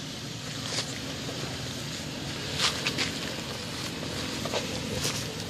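Toyota 4Runner's V6 engine running low and steady as it crawls up a rocky dirt trail, with several sharp crunches and cracks from the tyres over rock and gravel.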